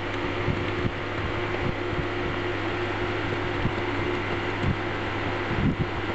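Steady fan-like hum and hiss with a constant low drone, and a few soft low thuds from handling the grinder's cast housing.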